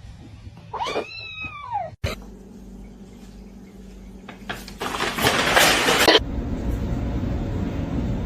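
A cat meows once, a single rising-then-falling call about a second in. Later comes a loud rushing hiss lasting about a second and a half, over a low steady hum.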